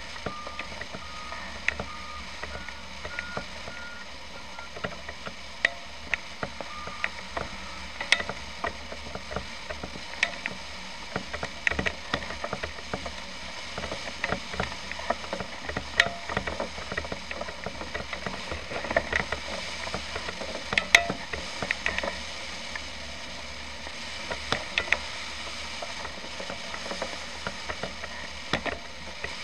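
Flight variometer sounding its climb tone: short beeps about two a second, stepping up in pitch over the first few seconds, which signals a strengthening climb. The beeps stop after about seven seconds. Many irregular sharp clicks and rattles run over a steady low noise.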